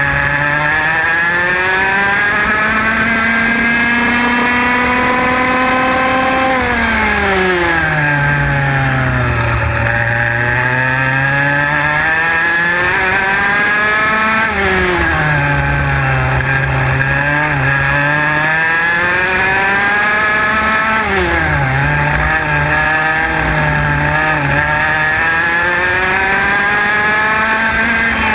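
IAME X30 125cc two-stroke kart engine at racing speed, its pitch climbing for several seconds along the straights and dropping sharply under braking for the corners. It climbs for about six seconds, falls steeply, climbs again, drops near the middle, climbs, drops about two-thirds of the way through and climbs again near the end.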